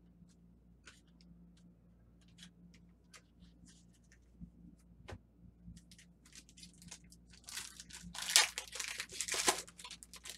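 Trading cards being handled and flicked through with scattered light clicks, then about seven and a half seconds in a card-pack wrapper being torn open with a couple of seconds of loud crinkling.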